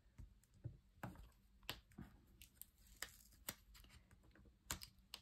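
Faint paper handling: scattered small clicks and rustles as a paper sticker is handled and pressed onto a scrapbook page.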